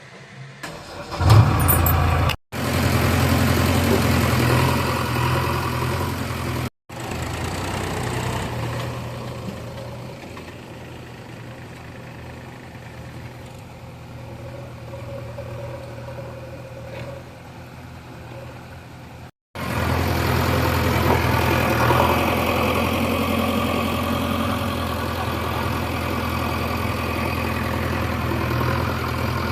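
Heavy machinery diesel engine running steadily, louder at the start and again from about twenty seconds in, with a quieter stretch in between. It cuts out abruptly three times.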